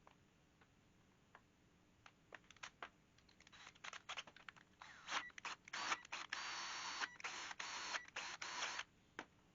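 Scattered light clicks and knocks of hand tools and wood being handled, then several seconds of hissy noise in short, uneven bursts, stopping about a second before the end.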